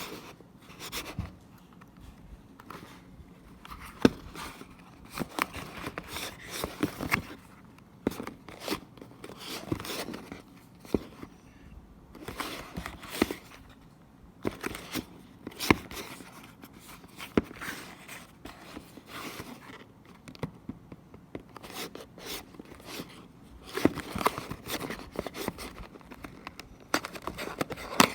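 Packaging being opened and handled by hand: irregular rustling, tearing and crinkling of cardboard and plastic, with scattered sharp clicks and a few louder knocks.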